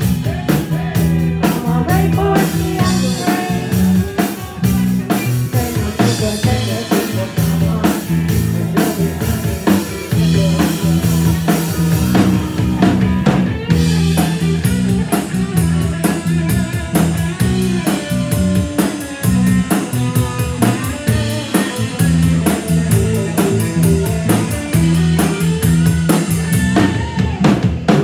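Live band playing an instrumental passage, drum kit and guitar over a steady low bass line. The drumming gets busier about halfway through.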